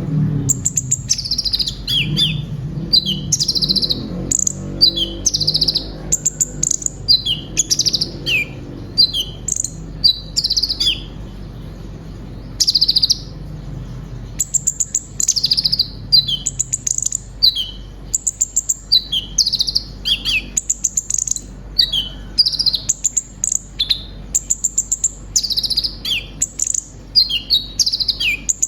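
Konin (kolibri ninja), a small sunbird, singing a long run of short, high, quick notes and falling sweeps. It sings in rapid phrases, with a brief lull about halfway through.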